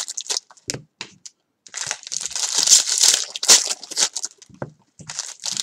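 Foil wrapper of a Bowman baseball card pack crinkling as it is torn open and handled. There are a few light clicks at first, then crinkling from about two seconds in, with a short pause near the end.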